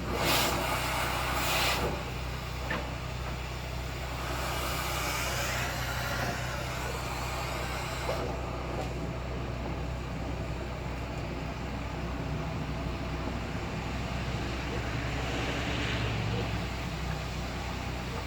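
Duct-cleaning power vacuum running with a steady low drone, with bursts of rushing, scraping noise as debris is worked loose and pulled through the dryer duct, loudest in the first two seconds.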